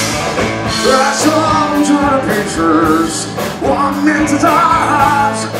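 Live rock band playing, with a male singer singing over bass, drums and cymbals, his voice wavering in pitch on held notes.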